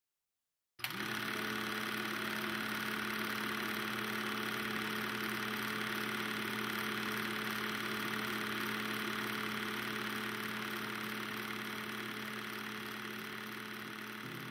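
Film projector running: a steady mechanical whir and hum that starts abruptly about a second in, after a moment of silence.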